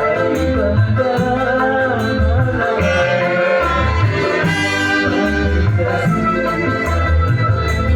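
Live dangdut band playing an instrumental passage: a keyboard melody line over hand-drum beats and bass, running steadily without vocals.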